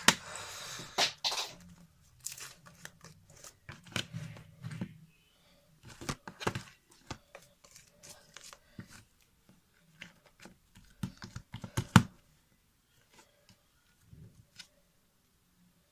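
Slime being handled by hand: scattered sticky tearing crackles and small pops, with a short run of noise at the start and the sharpest pop about twelve seconds in.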